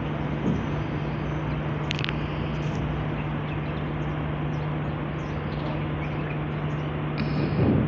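Steady outdoor city noise built on a constant low machine hum, with faint high bird chirps here and there and a brief louder swell near the end.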